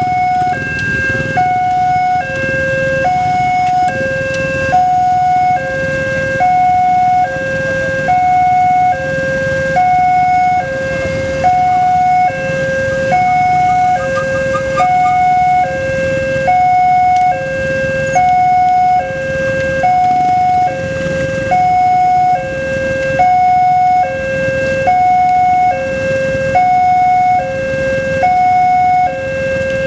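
Railway level-crossing warning alarm sounding its electronic two-tone signal: a higher and a lower note alternate steadily, each held a little under a second. It is the sign that the crossing is closed and a train is approaching.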